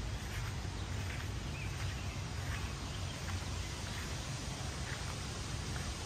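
Wind buffeting the microphone outdoors: a steady low rumble with a rustling hiss over it and a few faint short chirps now and then.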